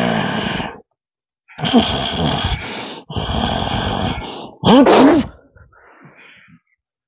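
A man's wordless, strained cries and groans in four long outbursts. The last, about five seconds in, is the loudest, with a pitch that swoops up and down.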